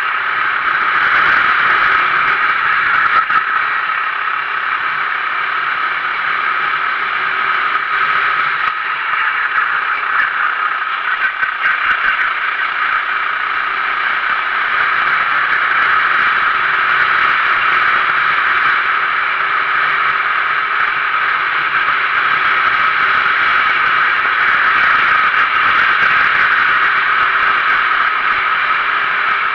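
Onboard sound of a Sodi RT8 390cc four-stroke racing kart at speed: a steady engine drone mixed with a hiss of wind and tyre noise, with a brief rattle about eleven seconds in.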